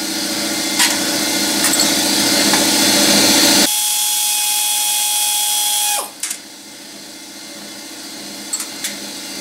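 Power ratchet whirring as it spins out the valve body bolts of a Mercedes 722.6 automatic transmission. The whir changes tone about three and a half seconds in and stops about six seconds in. A few light clicks follow near the end.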